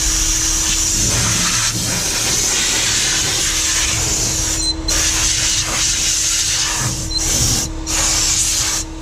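Compressed-air blow gun on a shop airline blasting a steady hiss of air over a leather car seat, with the trigger released several short times in the second half.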